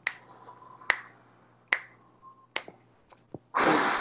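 Four finger snaps about a second apart counting the beats, then a long, strong blow of air through pursed 'ooh' lips starting about three and a half seconds in: the fast-air exhale of a clarinet breathing exercise.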